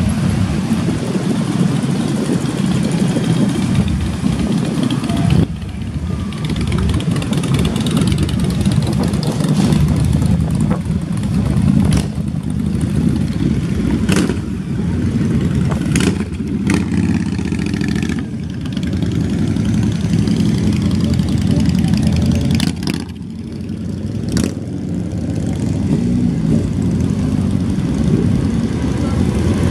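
A stream of motorcycles riding past one after another at low speed, their engines running and revving, a continuous blend of exhaust notes that swells and fades as each bike goes by. A handful of short sharp cracks stand out along the way.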